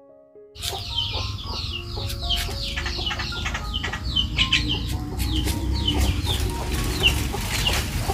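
Chickens clucking, with many short, high, falling calls repeating over a low rumble. It starts abruptly about half a second in.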